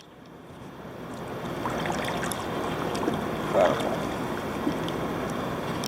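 Steady wind and sea noise around a kayak on open water, swelling in over the first couple of seconds and then holding even.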